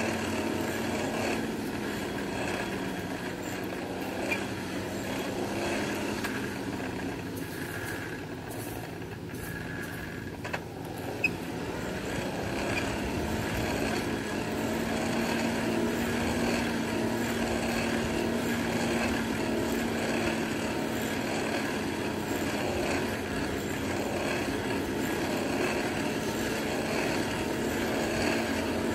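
Steady motor-like drone with a low hum, broken twice by a sharp knock, about four seconds in and about eleven seconds in.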